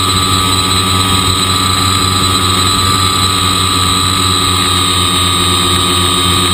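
Motor and propeller of a scratch-built foam-board RC cargo plane running in flight, a steady whine at constant pitch with a faint rush of air underneath.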